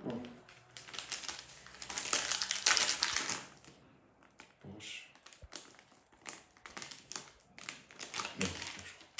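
Crinkling and rustling of a plastic packet of dry seasoning being handled and opened. The loudest rustle comes about two to three seconds in, followed by scattered short crackles and taps.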